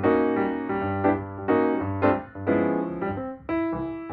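Piano music: chords struck one after another, each fading before the next.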